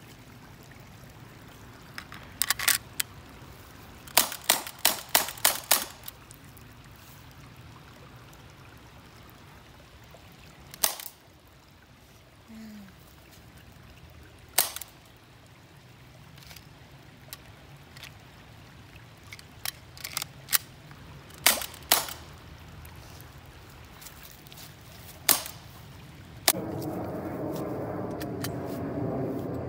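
Elite Force Glock 19X CO2 airsoft pistol firing single sharp shots at irregular intervals, with a quick string of about six shots a few seconds in. A steadier, louder noise comes in near the end.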